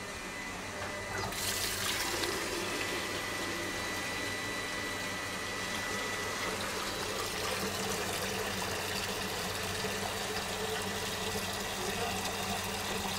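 Water running steadily from a kitchen tap, turned on about a second in.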